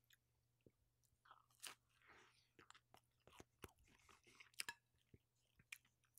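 Quiet, close-miked chewing of a crunchy slice of pizza: an irregular string of soft crunches and wet mouth clicks, a little louder about one and a half seconds in and again past the four-second mark.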